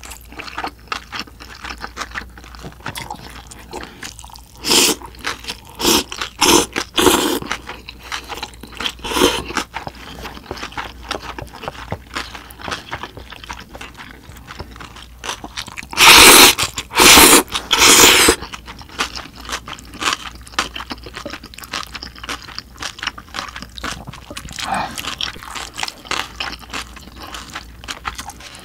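Close-miked eating of spicy buckwheat noodles (bibim makguksu): steady chewing and crunching with small chopstick and bowl sounds, broken by loud noodle slurps, a few a few seconds in and three in a row just past halfway.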